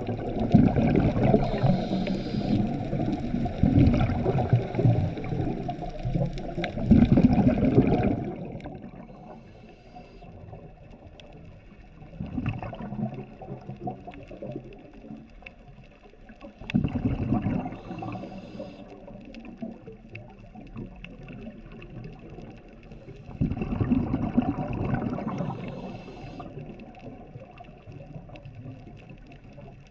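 Scuba diver's regulator recorded underwater: bubbling, rumbling exhalations, one long burst at the start and then three shorter ones several seconds apart, with a faint high hiss between them.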